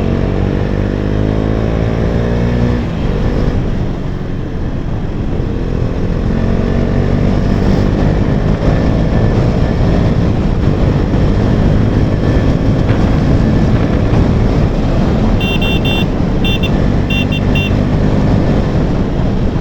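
KTM Duke 250's single-cylinder engine running through an aftermarket exhaust under way, pitch climbing as it accelerates. About three seconds in the pitch drops sharply at a gear change, and it climbs again through further gears. A few short beeps sound near the end.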